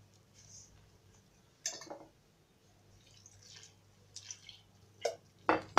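Wooden spoon stirring flour and warm water into a shaggy bread dough in a stainless-steel bowl: soft wet squelching, with a sharp knock about two seconds in and two more near the end.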